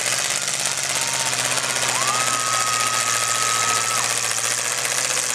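Several demolition derby cars' engines running rough and rattling together, with a steady low hum under a constant noisy wash. About two seconds in, a high steady tone comes in with a short rise in pitch and holds for about two seconds before cutting off.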